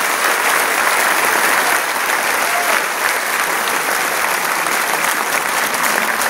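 Audience applauding: many hands clapping in a dense, steady wash of sound.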